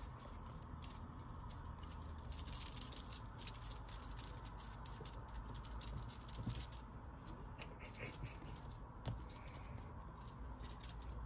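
Two kittens scrabbling and tussling in a crocheted yarn basket while pawing at a feather wand toy: soft scratching and rustling of claws and paws on yarn and feathers, with small ticks, busiest a couple of seconds in.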